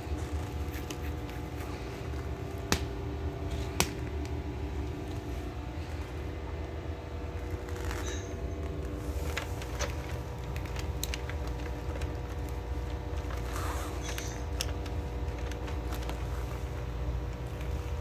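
White plastic parts of a fan humidifier clicking and knocking as they are handled, with two sharp clicks a little under three and four seconds in and lighter ticks later on, over a steady low machine hum.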